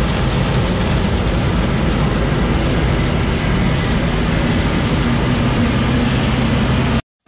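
Heavy farm machinery running steadily: a low engine hum under dense mechanical noise. It cuts off suddenly near the end.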